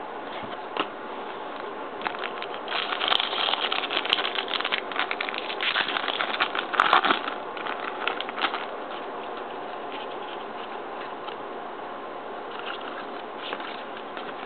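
Trading-card pack wrapper crinkling and cards being handled: a run of crackly rustles from about two to nine seconds in, over a steady background hiss.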